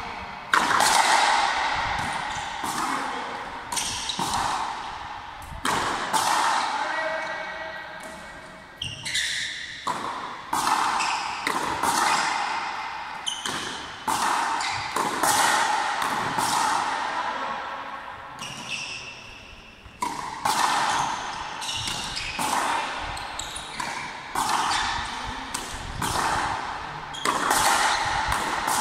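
Frontenis rally: a rubber ball struck by strung racquets and smacking against the front wall and floor, sharp cracks roughly once a second, each ringing out in the echo of a large hall.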